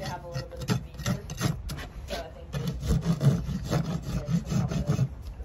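Farrier's rasp filing a horse's front hoof wall in repeated short strokes, finishing the hoof after shoeing.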